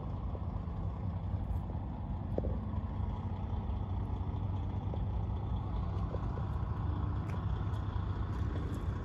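A diesel semi-truck engine idling with a steady low rumble.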